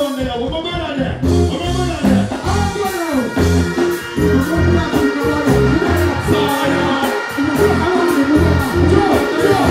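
Dancehall music played loud through a stage sound system, a steady beat with a performer's vocals delivered live into a microphone over it.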